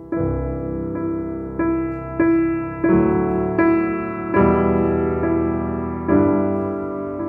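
Slow ambient piano music: single notes and chords struck roughly once a second, each ringing out and fading before the next.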